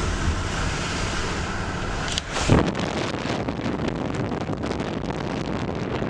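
Car driving on a snow- and slush-covered road: steady tyre and road noise with slush hissing and crackling under the wheels, and a brief louder whoosh about two and a half seconds in.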